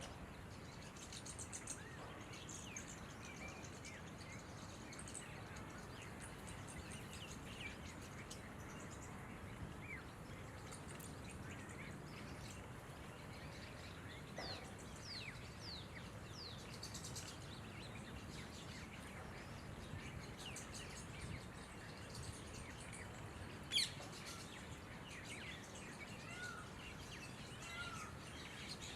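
Red-vented bulbuls and other small birds calling: scattered short chirps and quick falling whistles over a steady background hiss. One sharp, loud note stands out about two-thirds of the way through, and lower slurred notes come near the end.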